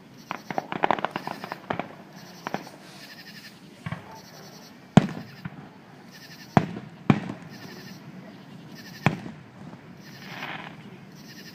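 Fireworks going off: a burst of crackling about a second in, then single sharp bangs spaced a second or two apart, the loudest about halfway through.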